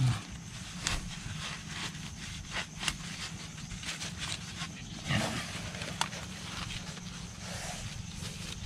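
Scattered rustles, scrapes and light knocks of a bamboo tube trap being handled and pressed into a land-crab burrow among dry leaves and soil, with a slightly louder scrape about five seconds in.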